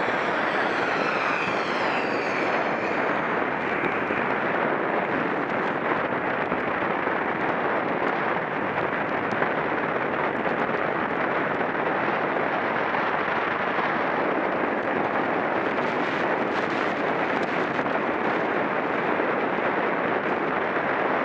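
Steady rush of wind over the microphone of a camera riding with a racing bicycle at speed, even and unbroken.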